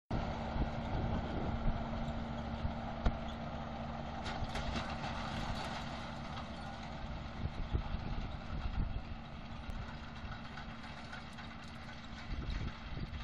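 John Deere 6930 tractor's six-cylinder diesel engine running at a steady speed as it pulls a rotary hay rake past and away. The sound fades gradually through the second half.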